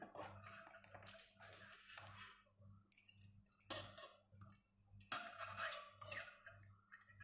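Metal wire being bent and handled with pliers: scattered light clicks and scrapes of metal on metal, the loudest about four and five seconds in.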